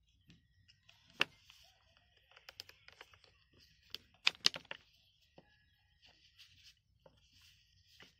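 Wooden parts of a handmade wooden toy revolver clicking and knocking together as it is handled and its cylinder worked, with a sharp click about a second in and a quick cluster of clicks around four and a half seconds in.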